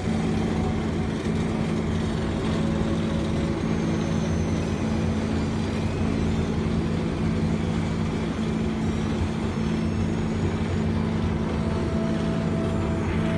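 Heavy road-paving machinery's diesel engine running steadily, an even low hum with no change in speed.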